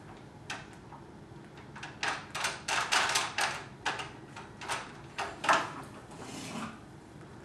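Plastic clicking and clattering from a baby walker toy's activity panel as a baby spins and flips its pieces: an irregular run of clicks, a few at first and then a busy stretch through the middle.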